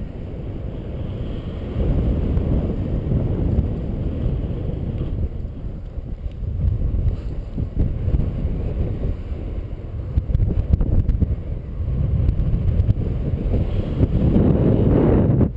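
Wind buffeting the microphone of a camera carried on a paraglider in flight: a low rumble that swells and eases with the airflow, strongest about a second before the end.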